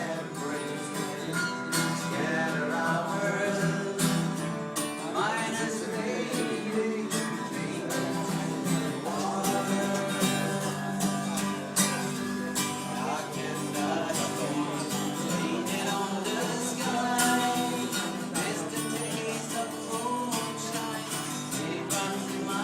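Acoustic guitar strummed, with some singing along.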